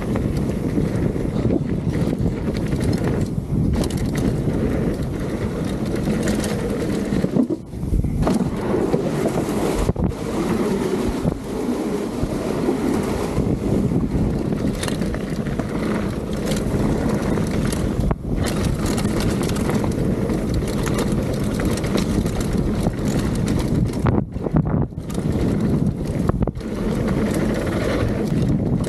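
Mountain bike descending a trail at speed: wind rushing over the action-camera microphone over the steady rattle and rumble of tyres and frame on the rough ground, with occasional sharp knocks from bumps.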